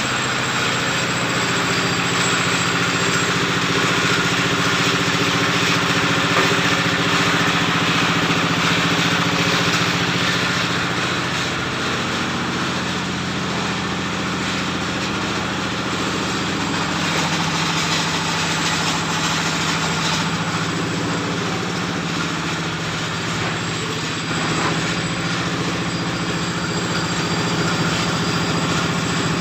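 An engine running steadily, its pitch dropping for a few seconds past the middle, then rising back.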